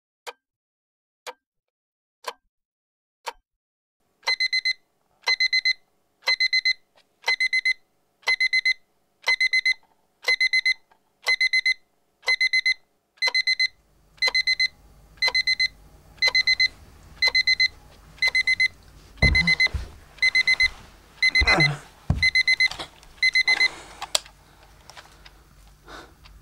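Quartz alarm clock ticking about once a second, then from about four seconds in its electronic alarm going off: quick bursts of high beeps, one burst a second. Near the end a couple of soft thumps, and the beeping stops shortly before the end.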